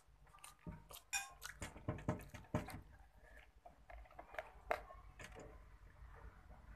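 Cutlery clinking and scraping against a plate while eating: a quick string of light clicks that thins out after about five seconds.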